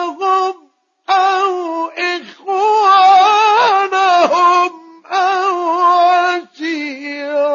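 Male Quran reciter's voice chanting in the melodic mujawwad style, holding long, high, ornamented notes in several phrases with short breaths between them.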